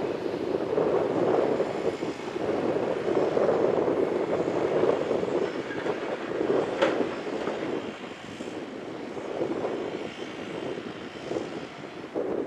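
Caterpillar 336 excavator's diesel engine and hydraulics working under load as the demolition grapple handles concrete slabs, the level rising and falling with the work. A short sharp knock about seven seconds in.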